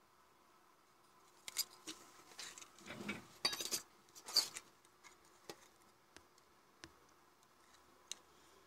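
Handling noise from a CFL bulb's opened plastic base and circuit board being picked up and turned over in the hands: a cluster of clicks and rustles about a second and a half in, then a few single light clicks.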